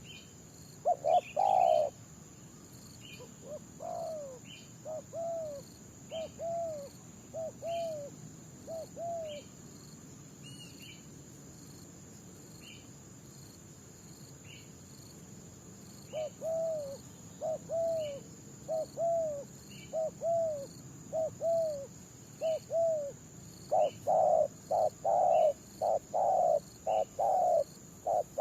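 Spotted doves cooing in quick runs of short, arching notes, with the run near the end louder than the earlier ones. A steady high insect drone and a faint repeated chirp run underneath.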